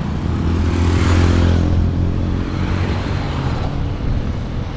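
A motor vehicle passing close by on the road, its engine note swelling to its loudest about a second in and then fading away, over steady traffic noise.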